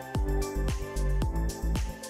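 Background music: an electronic track with a steady beat and sustained bass notes.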